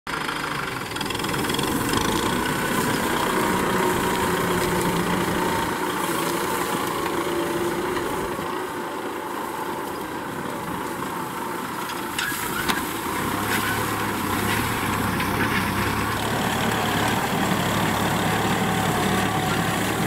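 Kubota M6040SU tractor's diesel engine running steadily under load as it pulls a mounted disc plough through the field, with a couple of knocks about twelve seconds in.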